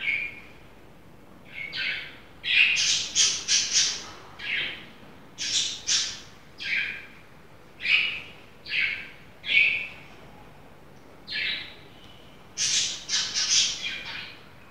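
A bird squawking and chirping in short calls, bunched in groups of two to five and repeated throughout.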